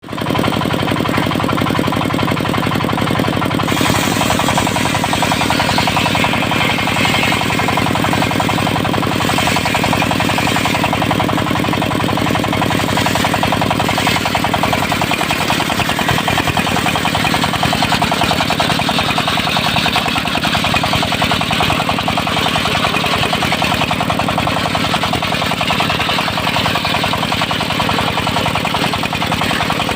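Engine-driven portable circular sawmill running with a steady, rapid chugging, and from about four seconds in its disc blade cutting through a teak log, adding a loud hiss that swells and eases.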